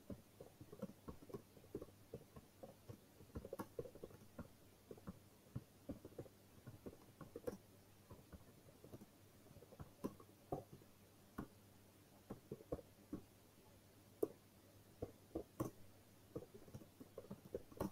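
Faint typing on a computer keyboard: quiet, irregular key taps, a few a second, as a sentence is typed out.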